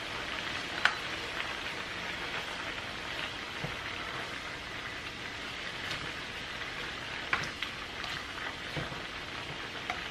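Chicken and vegetables sizzling in a hot frying pan as they are stir-fried, a steady hiss, with a few sharp clicks of the spatula against the pan, the loudest about a second in and another about seven seconds in.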